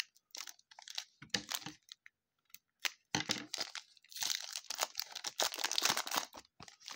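Foil trading-card pack wrapper crinkling in the hands and being torn open, in irregular bursts, the longest from about four seconds in to near the end.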